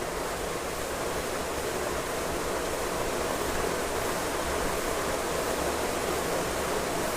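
Steady, even background hiss with a low hum underneath.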